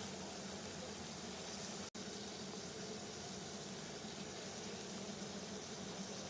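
Water boiling steadily: a dense, even bubbling hiss. It cuts out for an instant about two seconds in.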